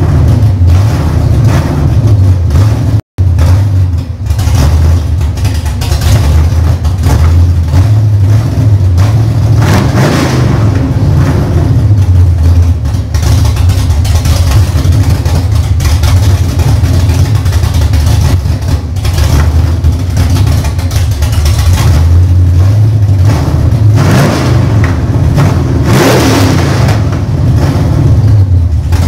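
Rebuilt Chevrolet big-block V8 engine running loud and steady, with a few short revs of the throttle.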